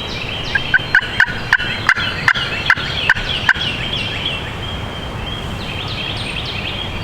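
Turkey yelping, a series of about ten short evenly spaced notes, two to three a second, that stops a little past halfway. Wind noise and songbirds chirping continue under it and after it.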